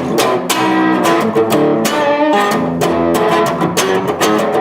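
Electric guitar playing a classic-rock-style intro, with strummed chords and single notes.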